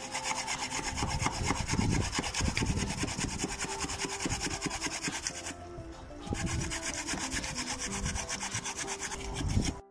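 A carrot being grated on a metal hand grater: quick, even rasping strokes, with a brief pause a little after halfway through.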